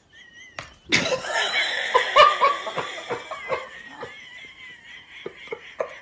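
A person laughing, breaking out suddenly about a second in and loudest at first, then trailing off into short bursts of giggling. A thin high whine runs underneath.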